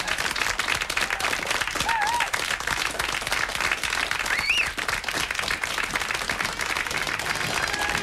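Studio audience applauding, a dense, steady round of clapping with a couple of whistles rising above it.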